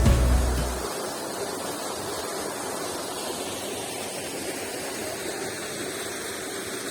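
Steady rush of falling water from a waterfall. Background music fades out about a second in.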